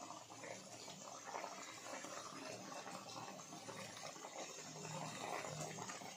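Chicken-head curry with water just added, simmering in a kadhai on the stove: faint, steady bubbling of the gravy.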